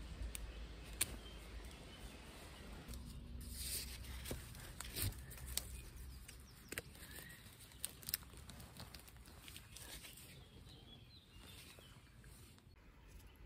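Scattered small clicks, scrapes and rustles of hand work: a knife whittling a wooden tent stake, then the stake handled in the grass and pushed into the ground to peg out a tarp corner.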